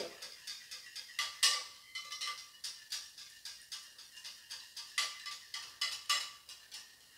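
Wire whisk stirring a milk mixture in a glass bowl, its wires clinking against the glass in an uneven run of light taps, with the bowl ringing faintly between them.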